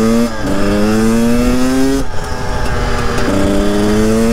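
KTM 300 TPI single-cylinder two-stroke engine accelerating hard, its pitch climbing, dropping at each gear change, then climbing again.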